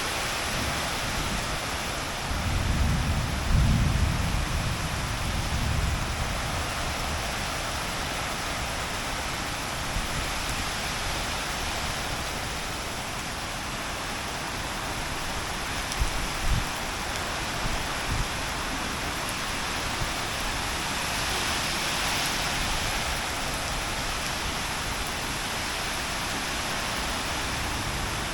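Heavy rain pouring down steadily. A deep rumble swells about three seconds in and dies away over a few seconds, and a few short, low thumps come about halfway through.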